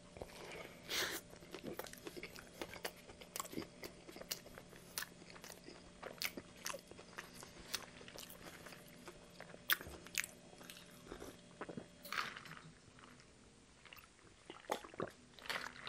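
Close-miked chewing of a bite of a breaded fried chicken sandwich: wet mouth clicks and small crunches at irregular intervals, over a faint steady hum. Near the end there is a drink from a paper cup.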